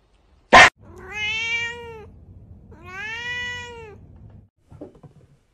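A short sharp click, then a house cat meowing twice: two long drawn-out meows, each rising and then falling in pitch.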